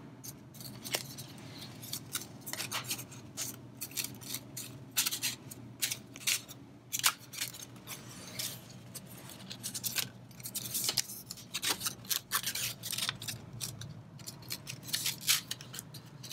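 Paper circles rustling and scraping against each other as slit circles are slid onto a paper template, a series of short irregular crinkles.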